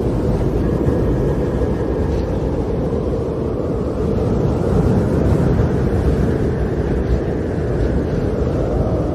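Storm wind blowing steadily as a dense, deep rumble, with a faint wavering whistle riding over it.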